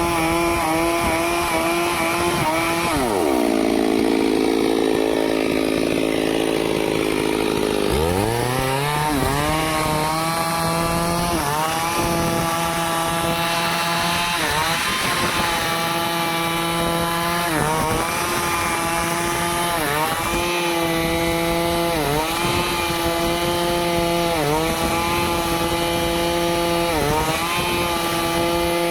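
Stihl two-stroke chainsaw running at high speed while cutting wood. About three seconds in, the engine slows for roughly five seconds, then climbs back to full speed. After that its pitch dips briefly about every two seconds as the chain bites.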